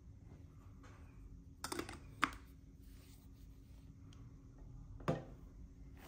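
Quiet handling noises from a switched-off Baseus handheld car vacuum: a short rustle and a sharp click about two seconds in, then a knock about five seconds in as the vacuum is stood upright on a glass tabletop.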